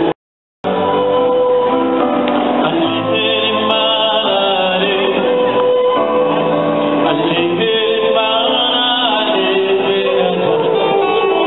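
Live band music with a singer, played over a stage sound system. The sound cuts out completely for about half a second just after the start, then the singing and band carry on.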